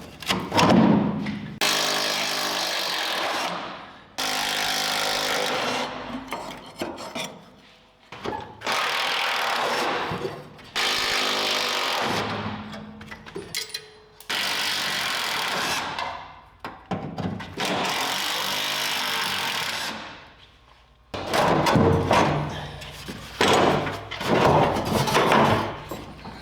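A power tool run in about six separate bursts of roughly two seconds each, with quieter gaps between. The last few seconds hold more irregular, choppy mechanical noise.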